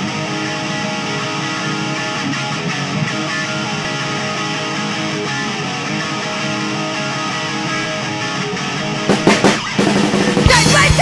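Intro of a hardcore punk song: a guitar sounding held, ringing chords on its own for about nine seconds, then drum hits and the full band crashing in much louder near the end.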